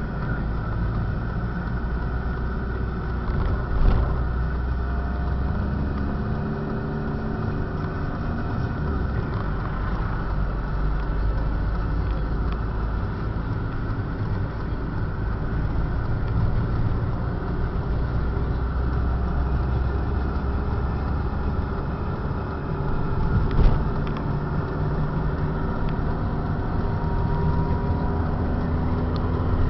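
Car engine and road noise heard from inside the cabin while driving, steady, with the engine pitch slowly rising and falling and two brief knocks.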